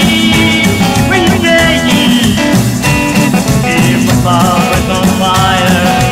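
Upbeat rock and roll music from a band, with guitar, drums and a singing voice.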